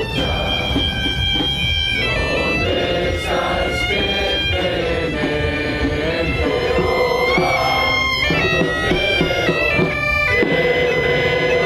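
Galician bagpipe (gaita) music: a melody of held and stepping notes over a steady drone.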